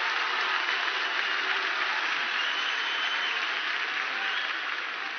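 Theatre audience applauding steadily, easing off a little near the end.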